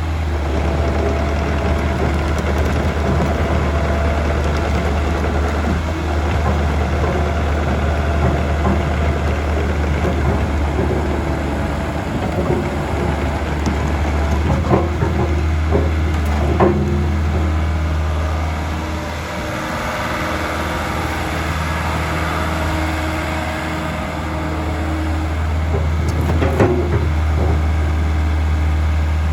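Diesel engine of a 2006 Bobcat 442 excavator running steadily, with a few short knocks along the way.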